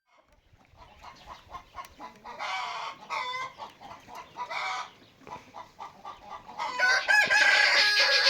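Chickens clucking in a series of short calls, growing busier and louder near the end, where a rooster's long crow trails off with a falling pitch.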